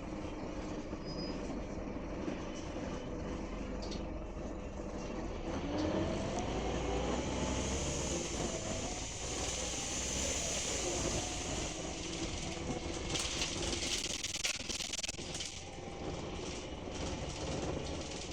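Scania K310UB bus's 9.3-litre five-cylinder diesel heard from inside, picking up speed with its pitch rising from about six seconds in. A high whooshing hiss comes with the acceleration; its cause is unknown and it does not sound like a broken turbocharger. Near the three-quarter mark a loud rattling hiss cuts across it.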